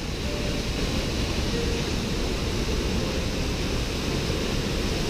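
Waterfall plunging into a deep rock pool: a steady rush of falling water.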